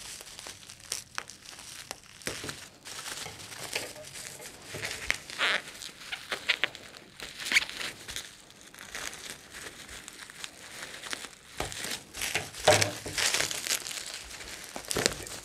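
Plastic bubble wrap being handled and pulled off a box by hand: irregular crinkling and rustling, with the loudest crinkle near the end.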